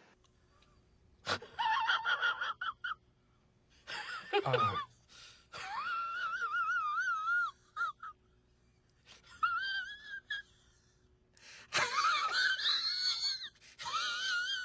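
High-pitched, wavering wheezing sounds in about six bursts with short gaps between them, one sweeping steeply down in pitch about four seconds in.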